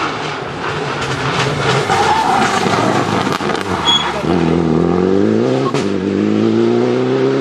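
Citroën DS3 rally car coming through a gravel-strewn corner, its engine and tyres loud as it slides past. About four seconds in it accelerates hard away, the engine note climbing, dipping briefly at a gear change, then climbing again.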